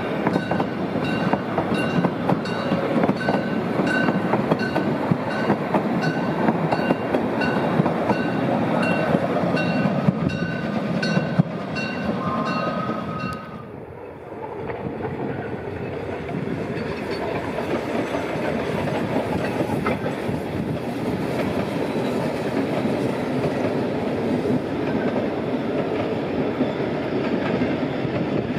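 Coaches of a 750 mm narrow-gauge train rolling past close by, wheels clicking over the rail joints with short metallic ringing tones in a regular rhythm. About halfway through the sound cuts to a steadier, more distant rumble of the train crossing a stone viaduct.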